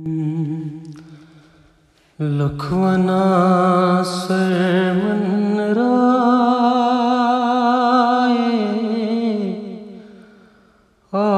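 Devotional singing of a Kashmiri manqabat: a voice holds long, wavering notes with no clear words. A short phrase fades out, then one long phrase is sustained and slowly fades away near the end.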